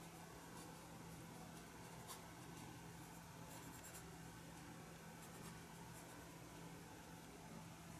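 Faint brush-on-paper sounds of a watercolour brush dabbing and stroking on watercolour paper, with a few light clicks, over a low steady hum.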